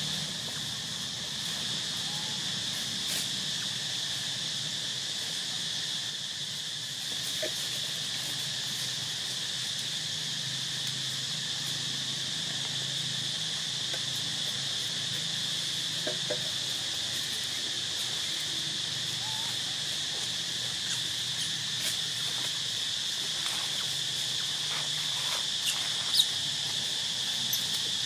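Steady chorus of insects, an unbroken high-pitched drone, with a few faint clicks and one short sharp sound near the end.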